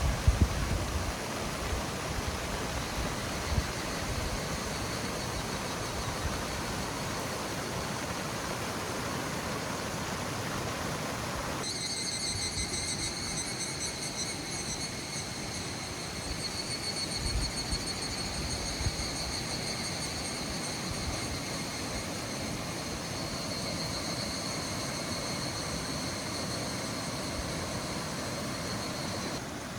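Water rushing in a stream, a steady noise. After a cut about twelve seconds in, the rushing is lighter and a high, wavering drone of several tones runs over it until near the end.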